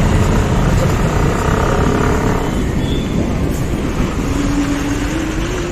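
Motorcycle being ridden on the road: steady engine and road noise.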